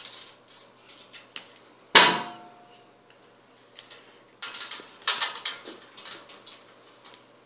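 Wire stripper working on fixture wires at a metal light fixture: sharp metallic clicks, one louder clank with a short ring about two seconds in, and a cluster of clicks and rustling between about four and six seconds in as the bared wires are handled.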